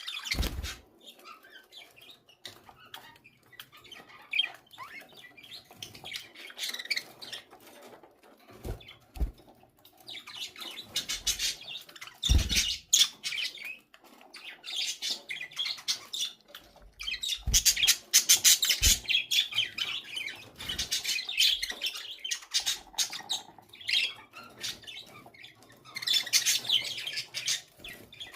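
Pet budgerigars chattering and chirping in quick, high bursts that come and go. A few soft low thumps and wing flutters are mixed in.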